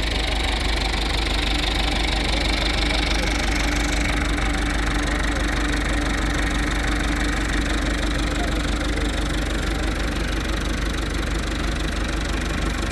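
Combine harvester running steadily: a loud, even engine drone with a constant hum.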